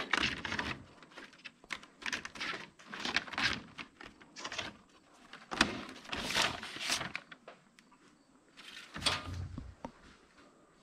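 Papers and loose objects being rustled and handled in irregular bursts, with a dull thud near the end.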